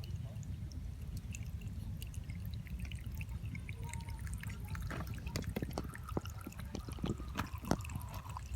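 Water trickling and dripping in many small, irregular drops that grow busier partway through, over a steady low hum.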